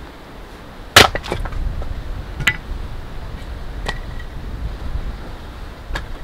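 Sharp cracks and knocks from work at a stone fire ring. The loudest crack comes about a second in, with a few lighter ones right after, then single knocks a second or two apart. A low wind rumble on the microphone sits underneath.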